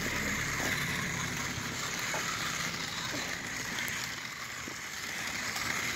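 Toy radio-controlled Ford Bronco's small electric motor and gears whirring steadily as it drives over concrete.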